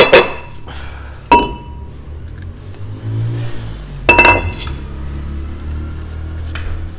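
Metal clinking with a short ringing tone three times: at the start, about a second in, and a quick cluster about four seconds in. These are metal brake parts or tools being handled during rear drum brake cleaning, over a low steady hum.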